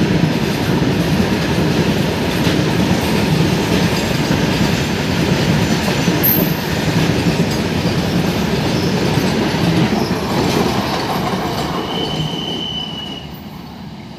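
A freight train of BCNA covered wagons running past at speed, a steady rolling noise of steel wheels on rail. It fades away as the last wagons clear, with a brief high squeal shortly before the noise dies down.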